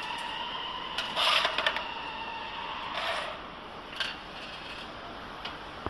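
Metal machine parts and hand tools being handled while screws are undone and parts fitted: two short scraping rubs, about a second in and about three seconds in, then a few light metal clinks.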